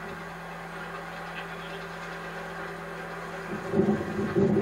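Wind buffeting the camcorder microphone over a faint steady hum, gusting louder and rougher near the end.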